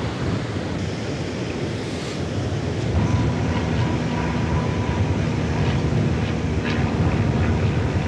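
Wind buffeting a camera's microphone on an open beach, with surf behind it. A faint steady hum joins about three seconds in.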